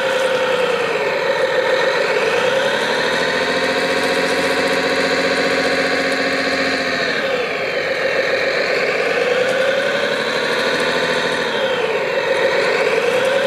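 Engine sound of a remote-controlled model bulldozer running steadily, its pitch sagging and climbing back up three times as the machine works.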